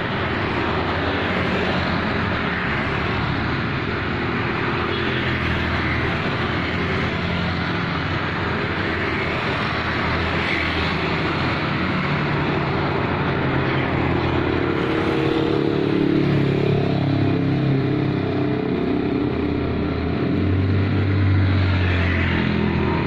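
Road traffic: vehicles driving past in a steady stream, with a lower engine sound swelling as a vehicle goes by about two-thirds of the way in and again near the end.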